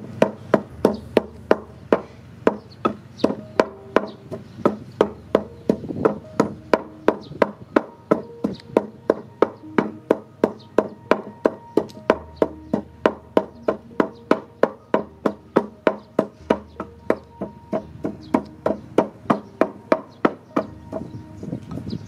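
Wooden pestle pounding in a wooden mortar in a steady rhythm, about three strokes a second, over quiet background music.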